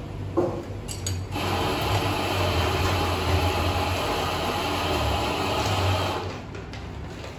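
A coffee-bar machine runs with a loud, steady whirring hiss over a low hum. It starts a little over a second in and stops about six seconds in.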